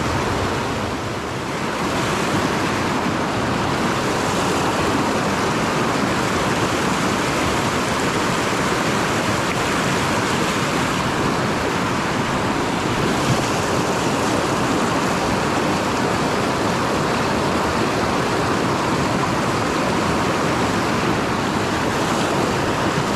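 Mountain creek running high: a steady rush of flowing water.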